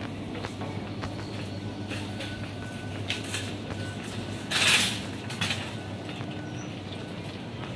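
Supermarket ambience: a steady low hum, the kind given off by refrigerated display cases, with a brief loud rustle or clatter a little past halfway and a smaller one just after.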